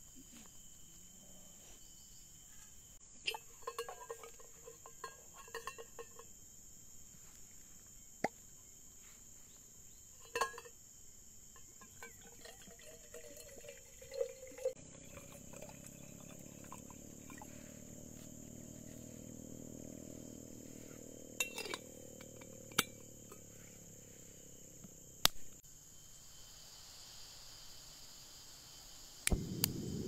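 Quiet tropical mountain-forest ambience: a steady high insect drone, with scattered sharp clicks and knocks. A low hum comes in through the middle and fades away, and a louder rush of noise starts just before the end.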